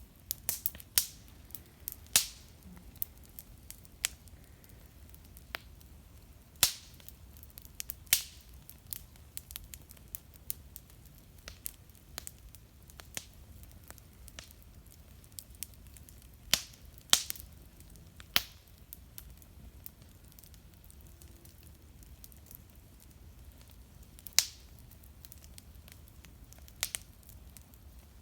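Wood fire crackling, with irregular sharp pops, some loud, every second or so over a faint low hum.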